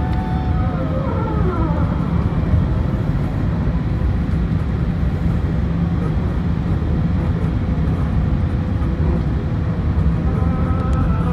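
Airbus A380's jet engines running, a steady low rumble, with a whining tone that glides down in pitch about a second in.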